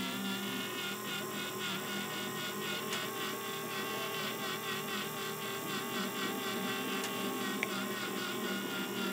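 Laminator's motor and plastic gear train running, a steady whir with a fast, even ticking of gear teeth. It is running on its 3D-printed replacement gear and drive shaft, which replaced worn-down parts.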